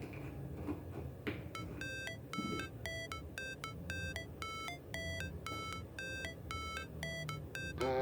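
Background music: a light electronic melody of short, bell-like notes repeating in an even pattern over a low bass layer.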